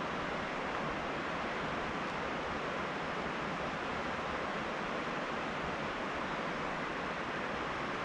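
Illinois River water flowing past, an even, unbroken rushing hiss with no separate events.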